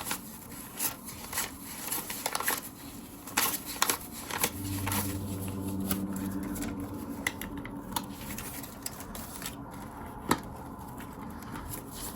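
Paper banknotes being handled and counted out by hand: soft flicks and rustles at irregular intervals.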